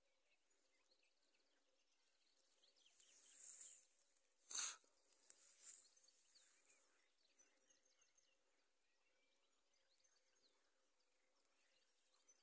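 Near silence: quiet countryside ambience with faint, scattered bird and insect calls. A soft rustle builds around three seconds in, and a brief knock comes about four and a half seconds in.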